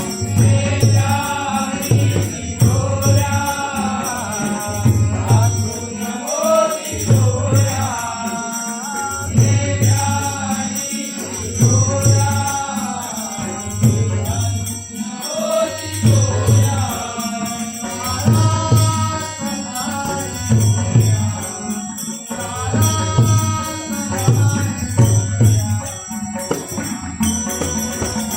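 Marathi devotional abhang sung in a bhajan. A voice sings a melodic line over a low drum beating about once a second, with steady metallic jingling throughout.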